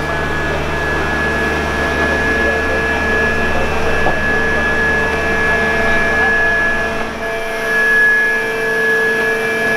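Machinery at a flood pump station running: a steady mechanical drone with a constant high whine and a deeper hum. The deep hum drops away about seven seconds in.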